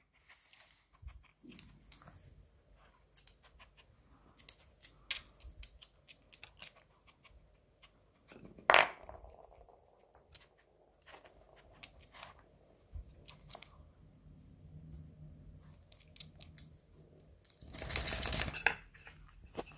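Wooden pegs of an AniOne dog-puzzle board clicking and knocking against the board as a dog noses them out of their holes, with one loud knock about nine seconds in and a longer clatter near the end.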